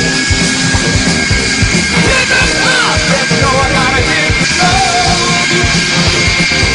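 Loud rock music with a fast, driving drum beat and shouted vocals.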